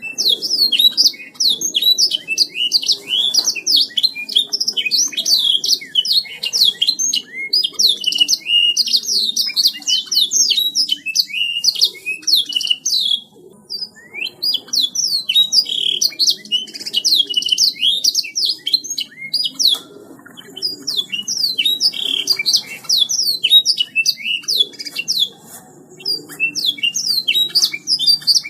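Domestic canary singing a long, rapid song of fast chirps and trills, with short pauses about halfway through and again a little later.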